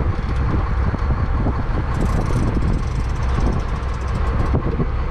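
Boat's engine running steadily under wind and sea noise, a low continuous rumble. A fast, high ticking joins it about two seconds in and stops about a second before the end.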